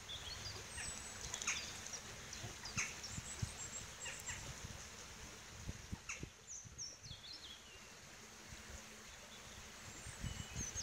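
Songbirds in a dawn chorus: scattered short high chirps and whistles, with a run of falling notes near the middle. Low thumps and rumble run underneath.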